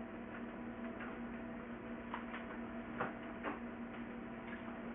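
Bed linens and a disposable underpad rustling as they are handled on a hospital bed, with a few light clicks in the middle seconds over a steady low hum.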